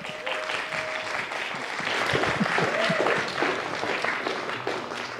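Audience applauding, building and then tapering off near the end.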